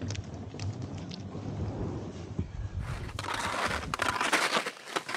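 A low, rough rumble with a few scrapes as an inflatable dinghy is dragged by rope across wet mud. About three seconds in, this gives way to loud, irregular crunching and scraping of skis moving over crusty snow.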